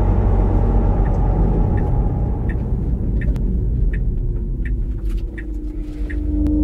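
Synthesized electric-car driving sound heard in the cabin while driving: a dense, rough low rumble that eases a little near the end. This is the adaptive sound generator morphed toward its rumbly character under pushed driving. Faint ticks repeat about every 0.7 s through the second half.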